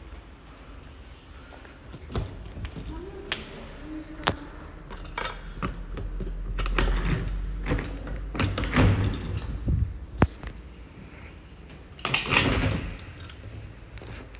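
Metal rear-door latch on a tricycle ambulance's box body being worked, with keys jangling on the handle and a run of sharp clicks and knocks. Near the end there is a louder clatter as the door is unlatched and swung open.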